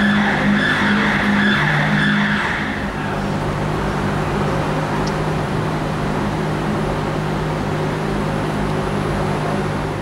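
Aston Martin One-77's 7.3-litre V12 idling steadily, with a high squeal over it for the first three seconds or so.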